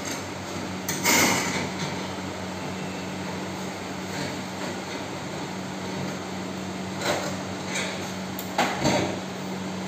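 Cassette air-conditioner indoor unit scraping and knocking against the false-ceiling frame as it is pushed up into the opening: one loud scrape about a second in, then a few short knocks near the end, over a steady low hum.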